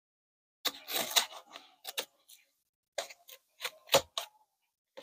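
Knife blade slicing through the taped end of a cardboard box: a burst of scratchy cutting and crackling cardboard, then a run of short sharp scrapes and clicks, the loudest a knock about four seconds in.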